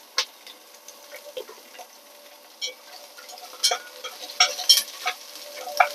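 Oil crackling and spitting in a pot as pieces of salted egg yolk fry with ginger and garlic, while chopsticks stir them. The crackles are sparse at first and come thicker from about three and a half seconds in.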